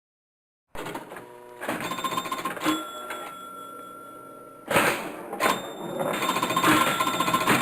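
Pinball machine in play: sharp clicks and knocks mixed with electronic tones and bells. A single tone is held for about two seconds, a loud hit comes near the middle, and a fast repeating jingle sets in near the end. The first moment is silent.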